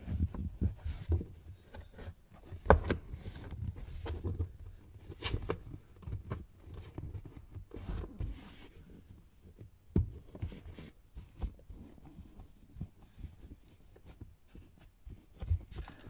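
Car footwell carpet being pushed and tucked back into place against the plastic console trim: irregular rustling, taps and soft knocks, with one sharper knock about three seconds in.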